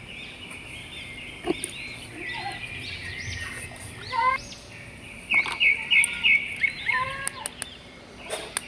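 Small birds chirping and twittering over and over, with a few sharp clicks near the end.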